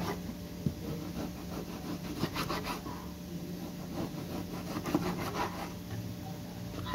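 Kitchen knife sawing back and forth through a raw pork picanha on a cutting board, in short bouts of scraping strokes with a couple of sharp knocks of the blade on the board.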